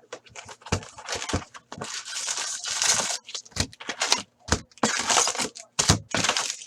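Foil hockey card pack wrappers being torn open and crinkled, with cards being handled, a quick run of crackles, rustles and sharp clicks.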